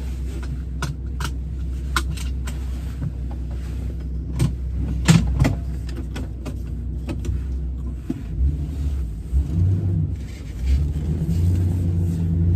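Truck engine running steadily, heard from inside the cab, with a few sharp clicks in the first couple of seconds as the seatbelt is pulled across and fastened and a louder knock about five seconds in. From about eight seconds in the engine note rises and wavers.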